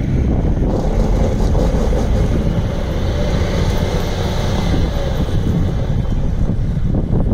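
MAN TGS 26.480 truck's 12.4-litre straight-six diesel engine running as the truck drives slowly forward across gravel, a steady low rumble with wind buffeting the microphone.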